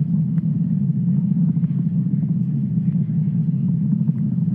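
Steady low rumble of a Falcon 9 rocket's first-stage engines burning during ascent.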